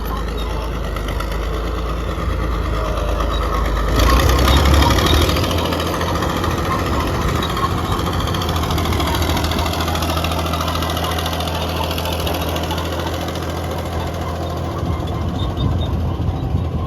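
Caterpillar D6D bulldozer's six-cylinder diesel engine running steadily; about four seconds in it revs up sharply, louder for a second or so, then holds at a higher, steady pitch.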